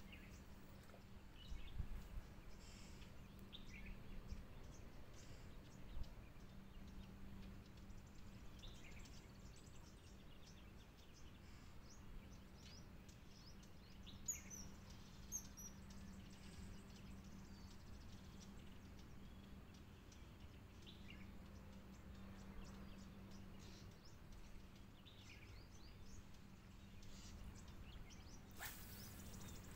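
Faint outdoor quiet with scattered short bird chirps and a low steady hum. Near the end comes a single loud swish as a fishing rod is cast and line runs off the reel.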